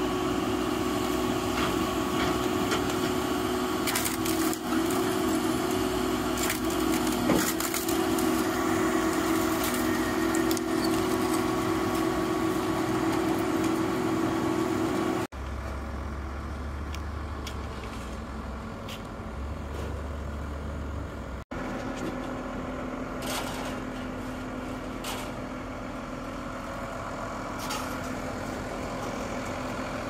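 Heavy scrap-processing machinery running steadily: the diesel engine and hydraulics of an Al-Jon 580 car logger (portable scrap metal baler) and its grapple as scrap cars are loaded. There are a few sharp metal clanks in the first several seconds. The sound changes abruptly about halfway through to a quieter run with a pulsing low rumble.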